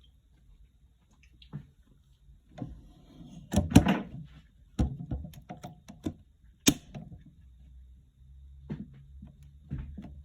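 A series of knocks, clicks and rustles of things being handled, with the loudest knocks a little under 4 seconds in and again near 7 seconds.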